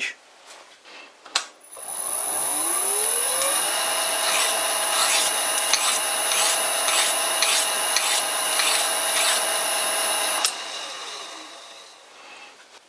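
Vintage Karger lathe's motor spun up by its variable frequency drive, the pitch rising over a couple of seconds, then running steadily with a high whine. A hand-held abrasive is rubbed against the spinning workpiece in quick strokes, about two or three a second. About ten seconds in the drive ramps the lathe down and the pitch falls away.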